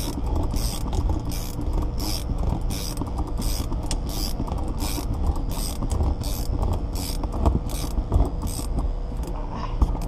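Windshield cut-out winch pulling its cutting line through the urethane bead, a steady low rumble with a regular high rasp about twice a second as the line saws through the glue.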